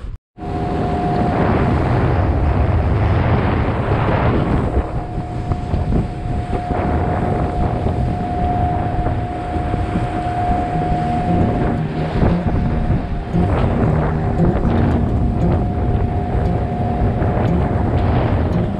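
Outboard motor running steadily, pushing an aluminium boat along at speed, with a steady whine over the engine, water rushing past the hull and wind buffeting the microphone. The sound drops out for a moment right at the start.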